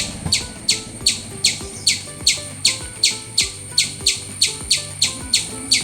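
A rapid, evenly spaced series of short high chirps, each falling in pitch, about three a second, over soft background music.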